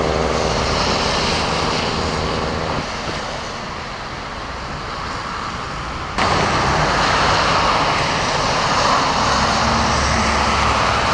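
Passing cars on a flooded road: tyres hissing through standing water and throwing up spray, with engines humming by. The sound jumps abruptly louder about six seconds in.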